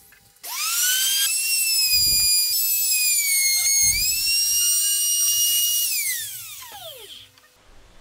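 Trim router motor switched on and spinning up to a high, steady whine, with a brief dip in pitch about four seconds in as the bit cuts into the wood. It is then switched off and winds down in a falling whine near the end.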